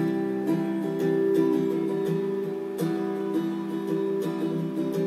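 Background music: strummed acoustic guitar chords in an instrumental break of a Japanese pop song.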